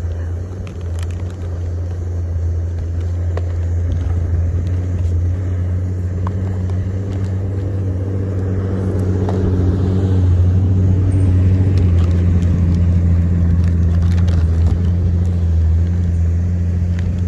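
Steady low rumble of wind buffeting the microphone, growing louder about halfway through, with a few small clicks and crinkles as foil food pouches are handled.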